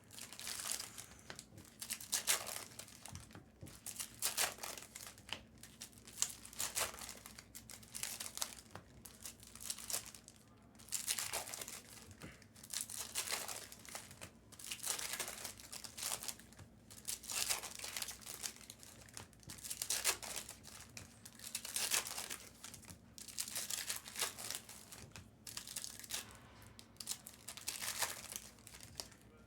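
Trading card pack wrappers being torn open and crinkled by hand, in a long run of short crackling rustles about once a second.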